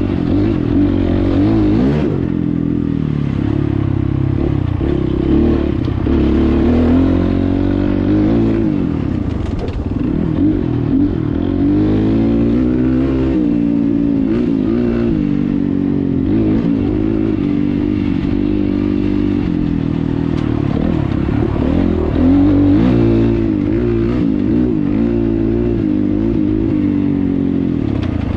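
Double-overhead-cam 300R motorcycle engine running under way on a modified open-loop fuel and spark tune, its revs rising and falling over and over as the throttle is opened and closed.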